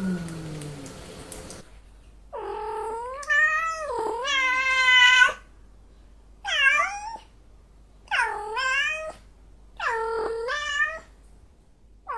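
Cats in heat yowling: the low tail of a falling call fades out, then one long wavering call is followed by three shorter meows with pauses between them.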